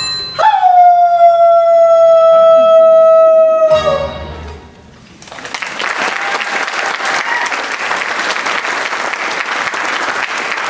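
A song ends on one long held note that scoops in, holds for about three and a half seconds and dips as it cuts off. After a short lull, about five seconds in, the audience applauds steadily.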